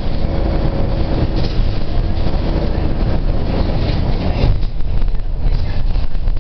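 Road noise from a moving car, heard from inside: a steady low rumble with tyre hiss. The rumble eases somewhat about four and a half seconds in.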